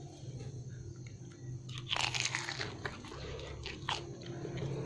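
Biting into a deep-fried bánh gối (Vietnamese fried dumpling) with a crunch of its crisp pastry crust about two seconds in, then chewing with a few sharp crackles.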